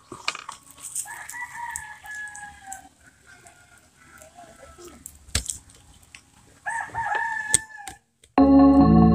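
A rooster crowing twice, each crow a long call of a second or two, with a few sharp clicks between. Near the end, loud music cuts in suddenly.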